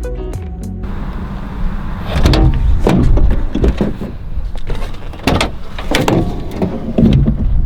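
A series of knocks and bangs, half a dozen or so spread out, over a steady rushing noise.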